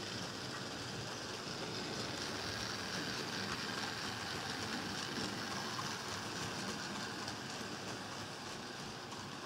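HO-scale model trains running past: a steady rushing rattle of small metal wheels rolling on the rails, with a thin steady high whine, easing slightly near the end.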